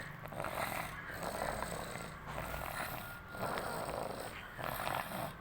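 Snoring in sleep: a run of raspy breaths, each about a second long with a short break between, about five in all.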